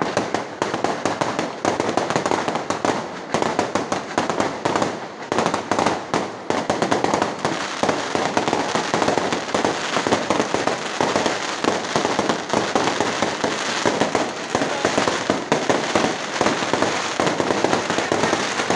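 Aerial fireworks display: a rapid, unbroken run of bangs and crackling from bursting shells, growing denser after about six seconds.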